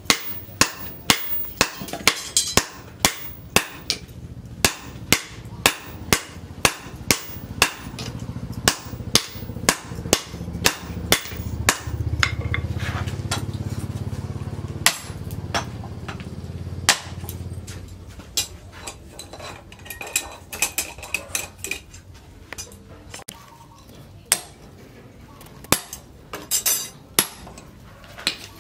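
Hand hammer striking red-hot leaf-spring steel on a steel post anvil, about two blows a second, each with a short metallic ring, while the steel is forged into an axe. About twelve seconds in the hammering stops and a low rumble takes over for several seconds. After that the blows come only now and then, with a quick run of strikes near the end.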